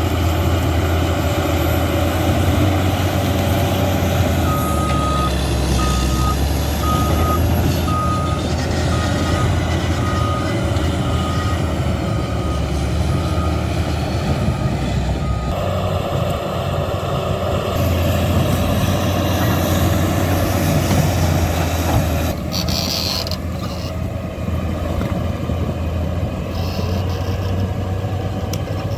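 Caterpillar D8 bulldozer's diesel engine running steadily, with its reversing alarm beeping about once a second for around ten seconds, starting about four seconds in, as the dozer backs up.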